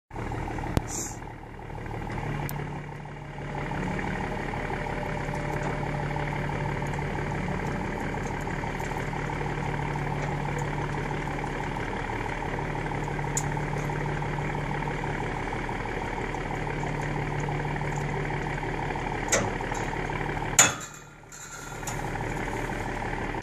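An engine running steadily at an even idle, with a few faint sharp clicks; it drops away briefly near the end, then comes back.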